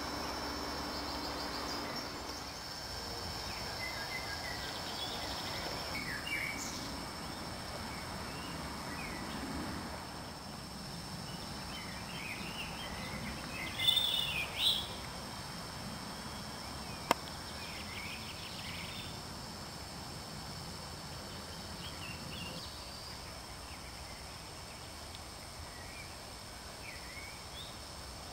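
Songbirds singing and calling in scattered short phrases over a steady thin high tone, with two louder bursts of chirping about halfway through and a single sharp click a few seconds after.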